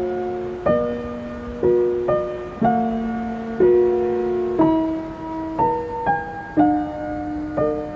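Background music of slow, gentle solo piano, a chord struck about once a second and left to ring.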